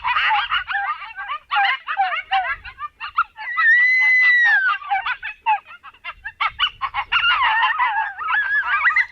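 A group of coyotes in a yip-howl chorus: rapid, wavering yips and barks throughout, with one long howl about three and a half seconds in that falls off at its end.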